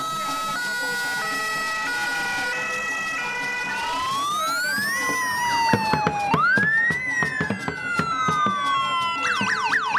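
Electronic vehicle siren sounding a slow rising and falling wail twice, then switching to a fast yelp near the end, over steady stepped musical notes.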